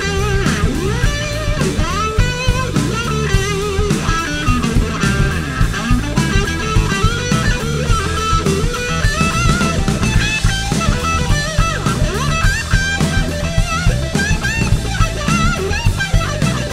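Electric guitar solo on a Gibson Les Paul Goldtop through an amplifier, with bent notes and vibrato, over a drum kit keeping a steady beat in a live blues-rock band.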